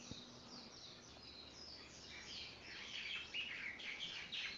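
Small birds chirping: many quick, high, falling chirps, sparse at first and growing busier about halfway through.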